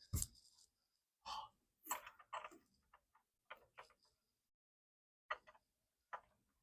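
Scattered faint clicks and light knocks, with a dull thump near the start and a stretch of near silence in the middle.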